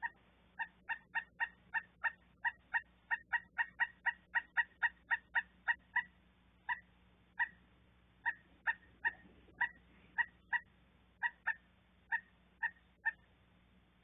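Pileated woodpecker calling a long series of short, same-pitched call notes. The notes come about three a second at first, then slow and space out, and stop about a second before the end.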